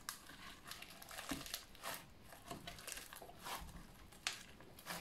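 Fluffy slime filled with small beads being squeezed and rolled by hand, giving faint, irregular crackles and clicks, the sharpest about four seconds in.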